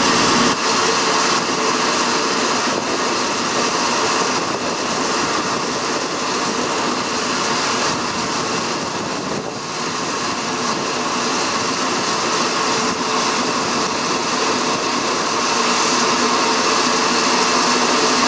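Cimbria Moduflex loading chute outloading dry bulk dolomite into a truck: a steady mechanical rushing noise with a constant hum, easing slightly about halfway.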